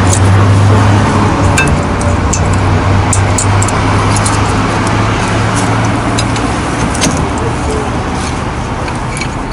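A motor vehicle's engine running as a steady low hum that fades away after about six seconds, over general traffic noise. A few light metal clicks come from the brake pads and caliper being handled.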